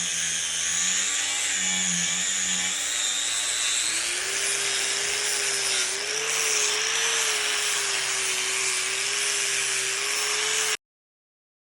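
Angle grinder with a 60-grit flap disc grinding steel welds flush, a steady grinding noise with a wavering whine. The whine steps up in pitch about four seconds in, and the sound cuts off suddenly near the end.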